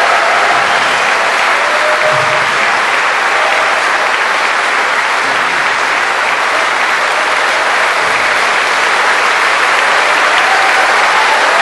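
Audience applauding, a loud, steady wash of clapping.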